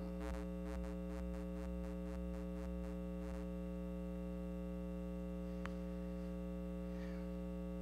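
Steady electrical mains hum with a buzz of many overtones from the sound system, with faint ticks about three a second over the first few seconds and a single click near the end.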